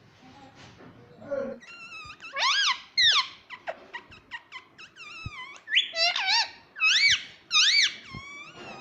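Indian ringneck parrot calling: a series of loud, high-pitched squawks, each rising then falling in pitch, starting about two seconds in and repeating roughly once or twice a second.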